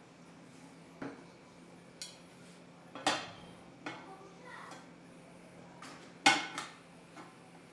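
Kitchenware being handled: about six separate clinks and knocks of dishes, pots or utensils, the loudest about three and six seconds in, each ringing briefly, over a faint steady low hum.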